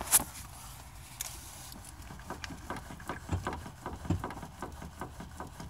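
A sharp click just after the start, then a run of light, irregular clicks and knocks, about three or four a second, as a GMC Suburban's steering shaft and linkage are worked by hand to check the worn steering box for play.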